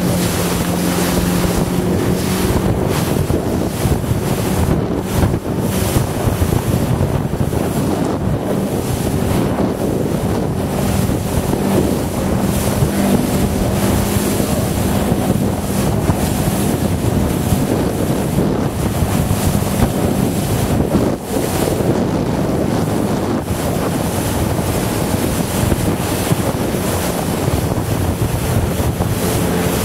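Wind buffeting the microphone, with water rushing and splashing past the hull of a motorboat. Under it runs the steady hum of the boat's engine, which fades about midway and returns near the end.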